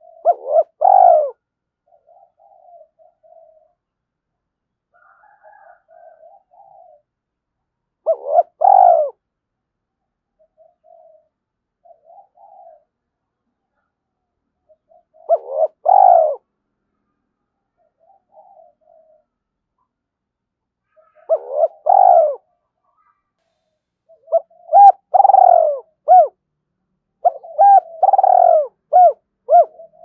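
Spotted dove challenge cooing. Loud coo phrases come about every seven seconds at first, then follow one another closely in the last few seconds, with fainter coos in between.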